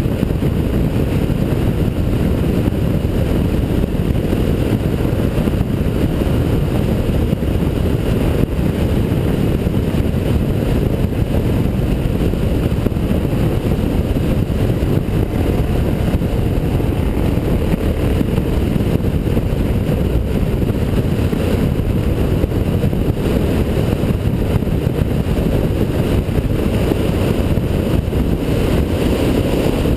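Dirt bike's engine running at a steady cruise, mixed with wind rushing over the camera's microphone, a steady low drone with no gear changes or rev changes.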